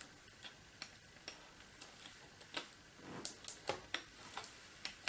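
Light, irregular clicks and ticks, a dozen or so spread through, from hands handling and seating a replacement LCD panel in a Dell Inspiron 17 3721 laptop lid.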